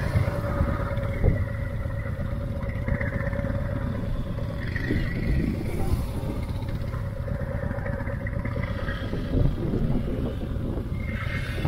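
Motorcycle engines running steadily, a continuous low rumble with a faint steady hum, with a couple of small knocks.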